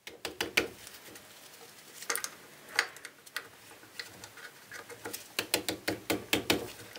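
Irregular metallic clicks and knocks as brake parts are handled and fitted on a Mercedes-Benz 180 Ponton's drum brake backing plate, with a quicker run of clicks in the second half.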